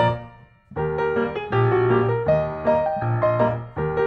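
Background piano music with a gentle melody and chords; it fades out briefly in the first second, then starts again.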